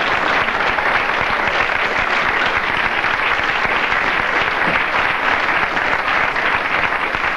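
Television studio audience applauding steadily.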